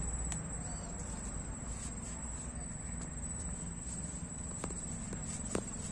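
Rustling and a few sharp twig snaps as someone pushes and crouches through a dense thicket of dry, thin stems, with several cracks near the end. Under it runs a steady high-pitched insect trill.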